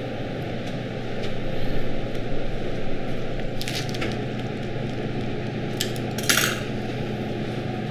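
A spatula taps and scrapes a stainless steel mixing bowl, then a plastic piping bag rustles twice in short bursts, about three and a half and six seconds in. A steady low hum runs underneath.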